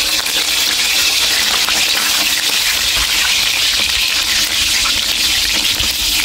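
Hot oil sizzling steadily in a wok as pieces of meat-stuffed eggplant fry, with scattered small pops and clicks.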